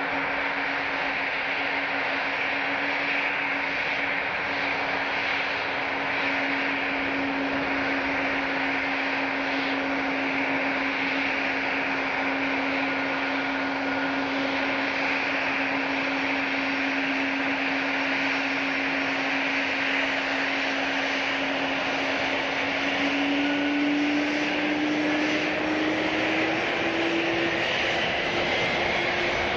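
Jet airliner engines running with a steady whine over a loud rushing noise; the whine rises slightly in pitch over the last few seconds.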